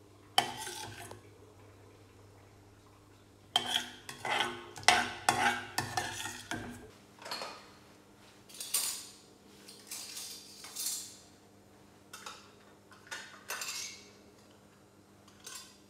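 Metal ladle clinking and scraping against a steel pot and a ceramic bowl while rice porridge is served: a sharp clink about half a second in, a quick run of clinks and scrapes from about three and a half to seven seconds, then softer scattered ones.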